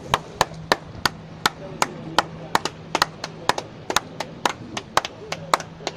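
A quick, uneven run of sharp clicks or taps, about three to four a second.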